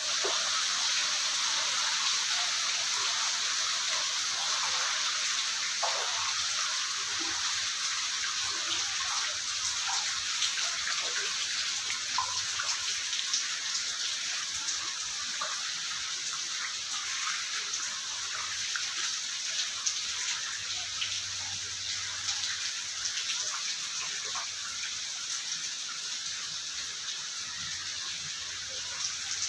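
Steady rain falling and dripping into standing floodwater: a continuous hiss with many small splashes throughout.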